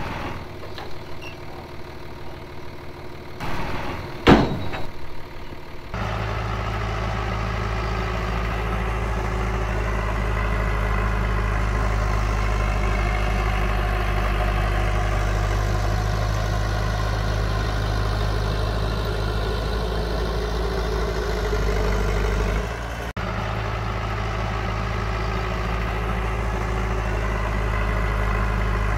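A single loud bang about four seconds in. From about six seconds on, a heavy earthmoving machine's diesel engine runs steadily, breaking off briefly about three quarters of the way through.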